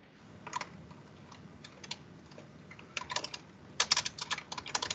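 Typing on a computer keyboard: a few scattered keystrokes, then quick runs of keys about three and four seconds in.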